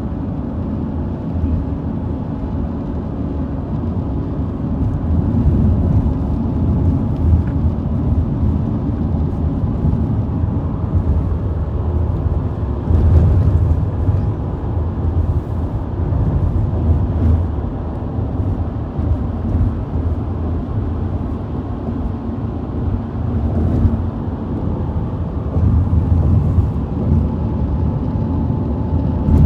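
Steady low rumble of a car on the move, road and engine noise with a faint steady hum, swelling a little now and then.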